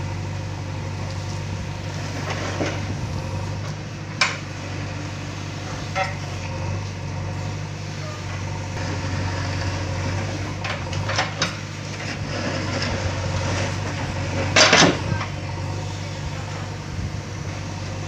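JCB 3DX backhoe loader's diesel engine running steadily while the backhoe digs into soil and sand, with a few sharp metallic knocks from the bucket and arm linkage, the loudest about three-quarters of the way through.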